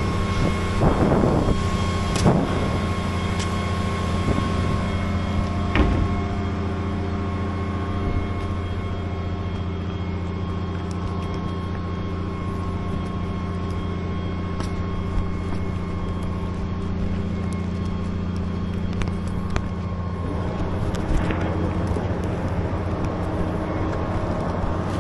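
A motor or engine running steadily with a low, even hum, with a few sharp knocks about two and six seconds in.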